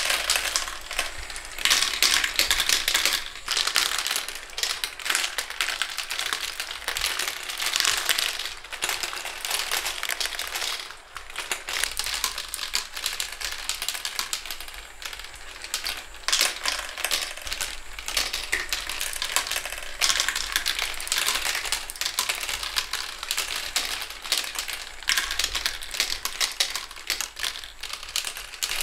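Marbles rolling and clattering through a plastic marble run's tubes and tracks: a dense, continuous stream of small clicks and rattles.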